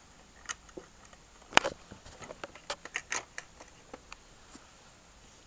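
Light clicks and taps of small plastic toys being handled, a dozen or so irregular ones, the loudest about one and a half seconds in.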